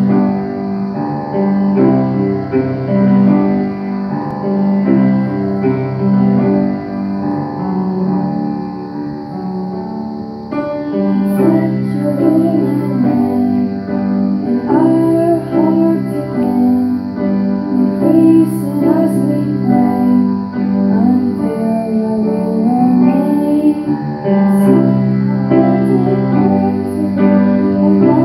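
Grand piano playing alone as an introduction, then female voices singing along with it from about eleven seconds in.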